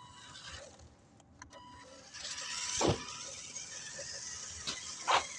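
Electric motor and gears of an RC truck whirring as it drives, starting about two seconds in, with a few short knocks, on a battery that is running low.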